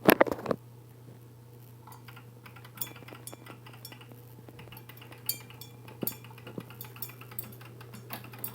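A grandfather clock's metal works: a loud metallic clatter at the start, then scattered sharp metallic clicks and clinks that come more often toward the end, over a steady low hum.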